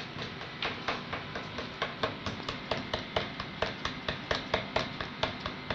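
A teaspoon clicking against a cup about four times a second as egg and dishwashing liquid are stirred together into slime.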